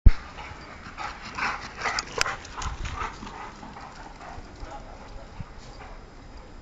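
Dogs barking in play: a run of short barks over the first few seconds, with a sharp click among them, after a loud knock at the very start.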